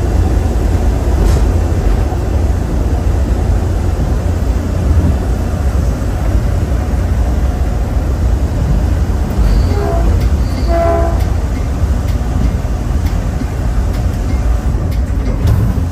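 Caltrain commuter train running, heard from on board as a steady deep rumble, with two short tones about ten seconds in.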